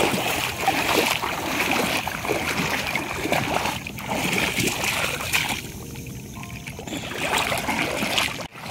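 Bare feet wading through ankle-deep seawater, a run of irregular splashing and sloshing steps. The splashing eases for about a second around six seconds in.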